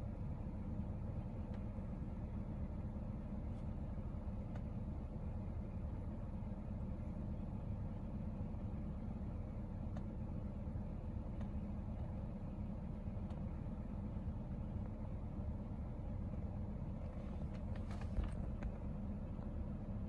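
Steady low background rumble, with a brief cluster of faint clicks near the end.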